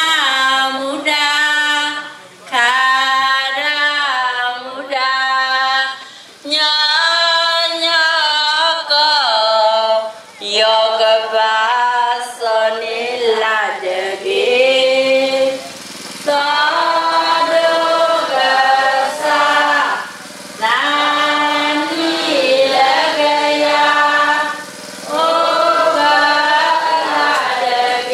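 Unaccompanied singing or chanting in a high voice, in phrases of two to four seconds separated by short breaths.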